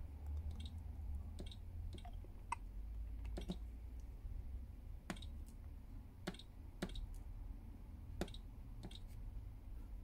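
Faint, irregular clicks of a pen tip tapping the touchscreen of a SEC-E9 key cutting machine as a key code is keyed in, about one tap per digit, over a low steady hum.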